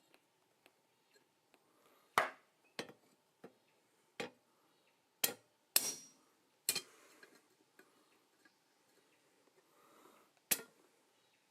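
Scattered metal-on-metal knocks and clanks from blacksmithing tools and steel stock, about eight strikes at uneven intervals, a few with a short ring after them.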